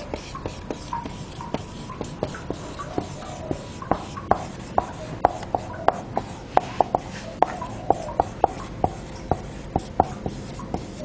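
Marker pen writing on a whiteboard: a quick series of short strokes and taps as letters are drawn, busier from about four seconds in.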